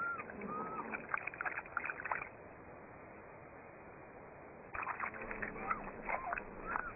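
Cheetahs chirping: short, high arched calls mixed with clicky ticks. They come in two bouts, with a pause of about two seconds between them.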